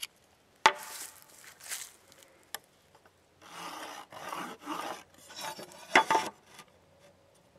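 A knife blade shaves the point of a carpenter's pencil, then the pencil scratches a line across a pine board in three or four rough strokes, with a sharp knock about six seconds in.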